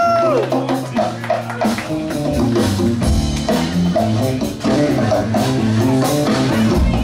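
Live funk band playing: electric bass line, drum kit and electric guitars. A long held note ends about half a second in.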